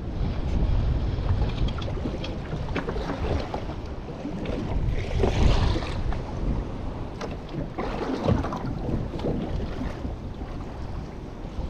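Wind buffeting the microphone on a small fishing boat, with water slapping against the hull and scattered light knocks and clicks.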